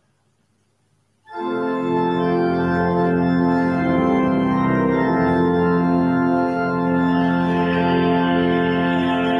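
An organ starts playing about a second in, after a near-silent pause, holding sustained chords: the closing music after the dismissal of the Mass.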